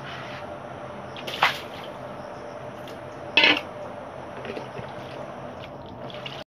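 Water splashing and trickling as fish pieces are rinsed: bloody rinse water tipped out of a steel bowl, then water poured from a steel tumbler over the pieces. There are two louder splashes, about one and a half and three and a half seconds in.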